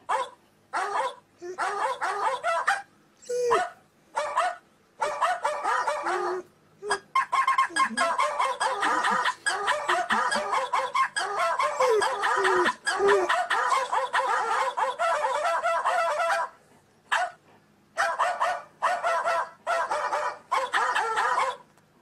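A special phone ringtone playing in a series of short bursts, then one long stretch of several seconds in the middle, then more bursts, stopping shortly before the end.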